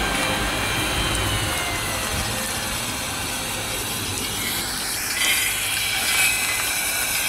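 The electric chimney blower on a 2-inch scale Allchin live-steam traction engine model winds down with a falling whine. Then the model's steam blower hisses, with two louder surges of hiss near the end. The steam is wet because the boiler is overfilled.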